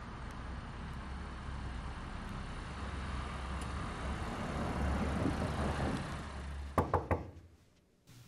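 A small hatchback car running and rolling into a parking space, its engine and tyres giving a low rumble that builds and then fades. Near the end come three quick, sharp knocks close together.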